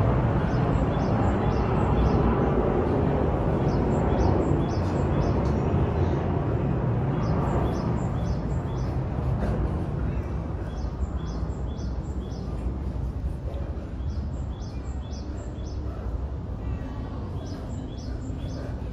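Small birds chirping in short repeated bursts over a steady low background noise. The background is louder in the first half and eases off after about eight seconds.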